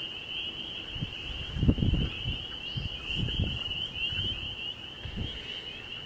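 A steady, high-pitched chorus of night insects trilling without a break. Irregular low rumbles of wind and handling noise on the microphone come and go, the loudest about a second and a half in.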